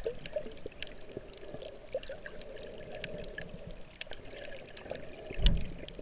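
Underwater sound picked up by a camera held below the surface over a reef: a steady muffled water rush with many scattered sharp clicks, and one loud low thump near the end.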